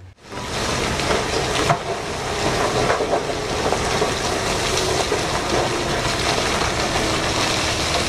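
Large mining haul truck's engine running steadily as its raised dump bed empties a load of rock, with the rock sliding and falling out.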